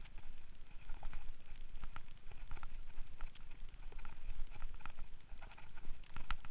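Mountain bike rolling fast over a bumpy dirt singletrack: irregular clicks and knocks as the bike and camera mount rattle over the ground, over a low rumble of wind and vibration.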